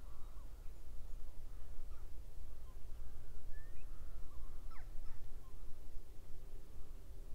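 Distant crows cawing now and then over a steady low rumble, with a few faint high chirps about halfway through.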